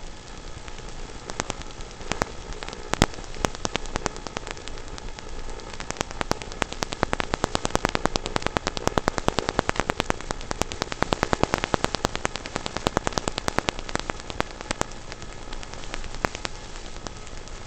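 RC car driving over gravel: dense crackling and pinging of loose stones, thickest through the middle, over a faint steady whine.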